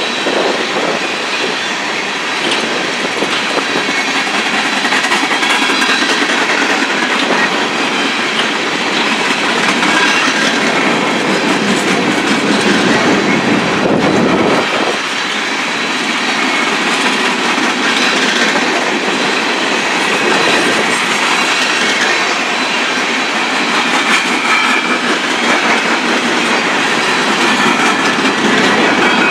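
Coal train's gondola cars rolling past, their steel wheels clattering over the rail joints in a steady clickety-clack over a continuous rolling noise.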